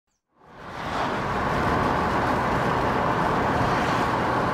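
Porsche driving along, heard from inside the cabin: a steady mix of engine, tyre and wind noise, fading in over the first second.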